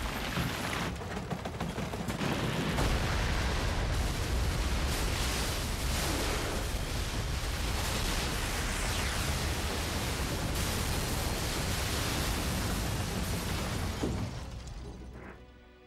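Crash of a twin-turboprop Embraer EMB-120 Brasilia making a gear-up belly landing in a field: a loud, continuous crashing noise with several heavier impacts, fading out near the end.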